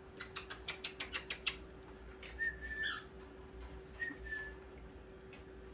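Pet parrots calling in their cage: a quick run of about ten sharp clicks in the first second and a half, then a short whistled note that slides upward, and a second brief whistle a little later.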